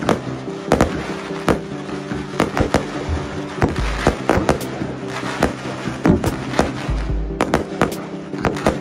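Fireworks display: a rapid, irregular string of sharp bangs, several a second, with music playing underneath.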